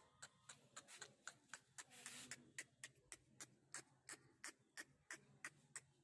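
Faint, steady ticking, about four ticks a second, the percussion of a background music track after its melody has ended, with a short hiss about two seconds in. It stops abruptly near the end.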